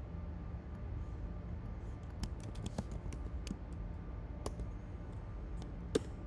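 Typing on a computer keyboard: a run of quick, irregular key clicks over a steady low hum, with one louder keystroke near the end.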